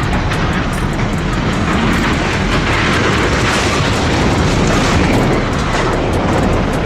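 A train passing a level crossing at speed: a loud rushing noise that swells to a peak midway and then fades.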